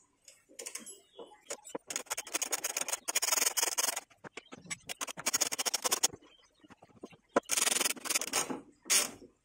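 Socket ratchet wrench clicking in several bursts of rapid clicks, each a second or two long with short pauses between, as the nuts on a front shock absorber's upper support mount are unscrewed.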